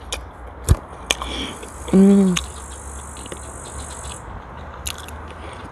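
A person eating herring, with wet mouth clicks and smacks while chewing and a short hummed 'mmm' of enjoyment about two seconds in. A steady high insect buzz runs behind it until about four seconds in.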